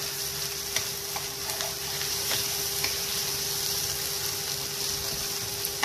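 Chopped onions sizzling in hot oil in a frying pan, stirred with a steel spatula that now and then clicks and scrapes against the pan. A steady faint hum runs underneath.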